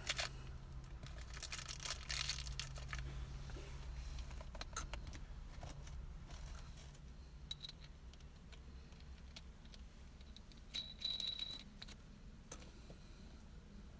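Scattered small clicks and rustling of hands working a shift boot and shift knob, over a steady low hum.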